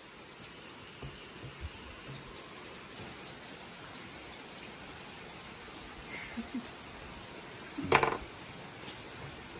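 Steady rain falling, with a few faint knocks and one sharp knock about eight seconds in.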